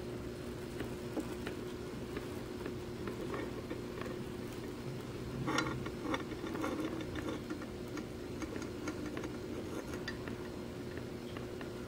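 Steady low hum of aquarium equipment, with scattered light clicks and taps and a brief cluster of them about halfway through.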